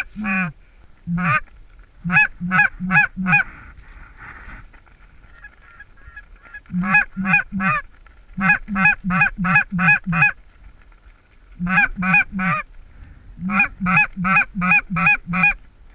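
Goose honks in quick runs of about three a second, in groups of four to eight with short pauses between them. A faint, steady goose chatter fills one of the gaps.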